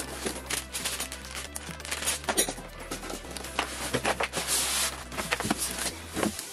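Background music with a steady bass line, over the rustling and crinkling of a cardboard box and its packing as a stand mixer is pulled out, with a few light knocks.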